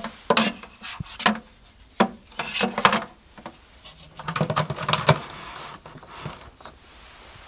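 Hollow plastic knocks and clunks as a used amalgam filter is placed into a plastic waste bucket, then a burst of scraping and clatter about four seconds in as the bucket's plastic lid is fitted and pressed down onto the rim.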